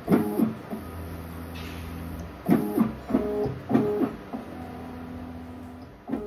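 Stepper motors of a RatRig Killer Bee CNC driving the gantry during the Y-axis homing and squaring cycle. A few short pitched whirs alternate with two longer, steadier low hums as the axis seeks the limit switches, backs off and creeps back slowly.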